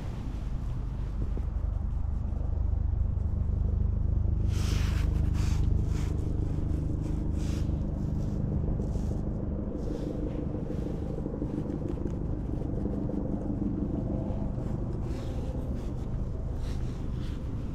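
An engine running at a steady pitch, with short rustling or scraping noises now and then, loudest about four to six seconds in.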